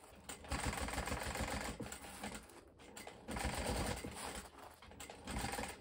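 Sewing machine stitching in two runs with a short pause in between, topstitching along the edge of a fabric clutch bag.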